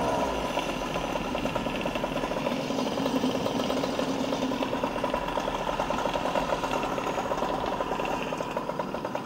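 Small modified two-stroke Goped engine winding down just at the start, then idling with an even, rapid pulse.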